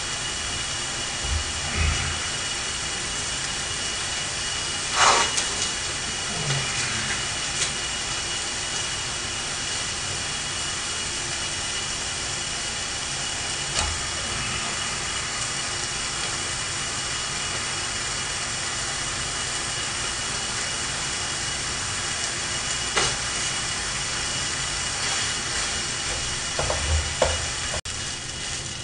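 Kimchi fried rice sizzling in a frying pan on a portable gas burner, a steady hiss. A few brief knocks of a spoon in the pan as rice is added and stirred.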